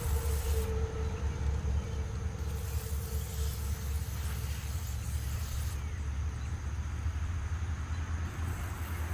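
Water from a garden hose spray wand running gently onto the soil at a seedling's base: a steady hiss that brightens and dulls a few times, over a steady low rumble.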